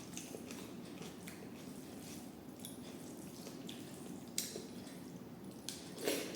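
Wet eating sounds: chewing and the handling of rice with lentil dal, a string of small moist clicks and squelches, with two sharper clicks, one past the middle and one near the end.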